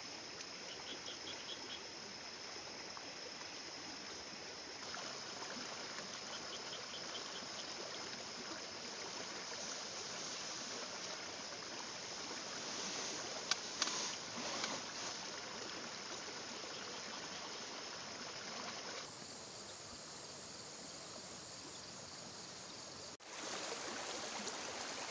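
Steady rush of a fast-flowing river at night, with insects chirping: a steady high trill and, twice early on, short runs of pulsed chirps. A couple of sharp clicks sound around the middle.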